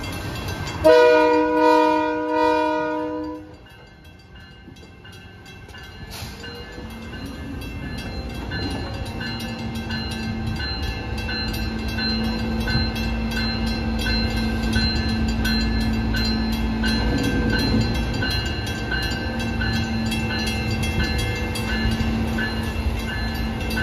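Locomotive horn sounding one loud blast of about two and a half seconds. After it, the freight train rolls through the grade crossing, its rumble building, with the crossing bell dinging steadily.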